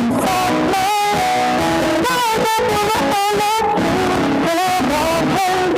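Music with a prominent guitar.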